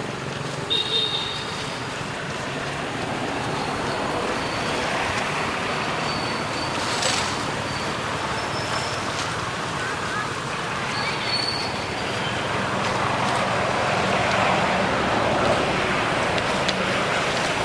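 Steady outdoor background noise like distant traffic, with a few brief high-pitched squeaks about a second in and again around eleven seconds.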